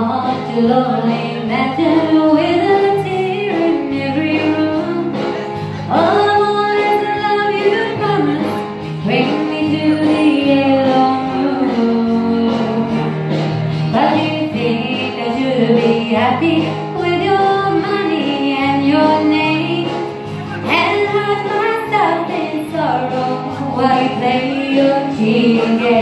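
A woman singing a slow country song into a handheld microphone, with held, gliding notes over instrumental accompaniment.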